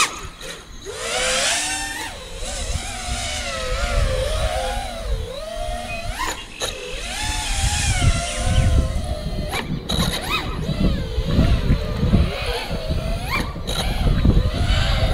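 Brushless motors and props of a 6S FPV freestyle quadcopter whining, the pitch swinging up and down with the throttle, with a few sharp climbs and sudden drops. Wind rumbles on the microphone, stronger in the second half.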